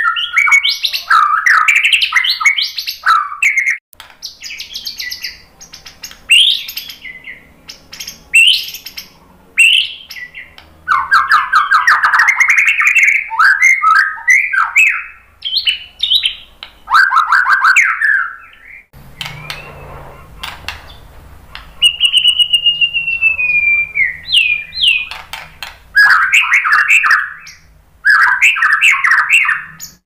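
White-rumped shama singing loudly: varied phrases of rapid trills, chattering notes and clear whistles, broken by a short lull about two-thirds through and followed by a long falling whistle.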